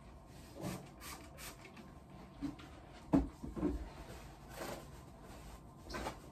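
Scattered soft knocks and rubbing sounds of someone moving about a small room and handling things, with one sharper knock about three seconds in.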